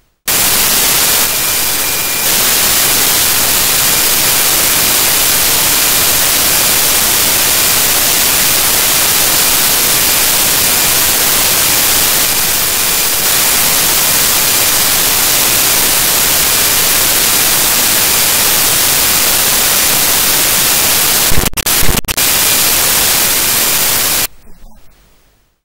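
Loud, steady TV static: an even white-noise hiss that starts abruptly, with a couple of brief crackling dropouts a little before it dies away near the end.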